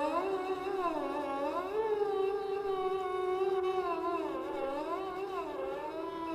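Sarangi bowed softly with a German-style contrabass bow: one continuous singing line that glides smoothly up and down in pitch between notes.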